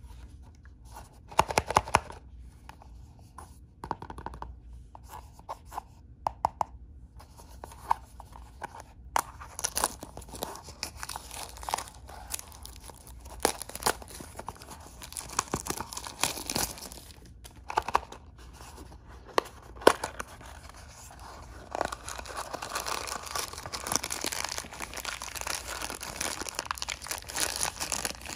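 Toy blind-bag packaging torn open and crinkled by hand: scattered sharp crackles and snaps at first, then steady, dense crinkling through the last several seconds.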